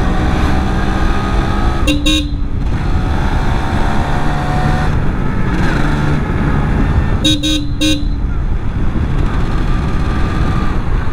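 Yamaha RX135 two-stroke single-cylinder engine running as the motorcycle rides along. A horn gives two short toots about two seconds in and three more about seven seconds in.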